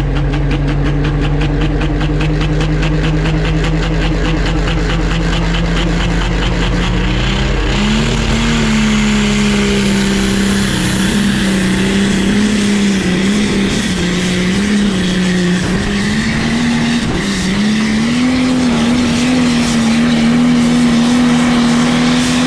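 Pro Stock pulling tractor's turbocharged diesel engine running flat out under load as it drags a weight-transfer sled, heard from on the sled. Its pitch holds steady at first, jumps up about seven seconds in, then wavers up and down for the rest of the pull.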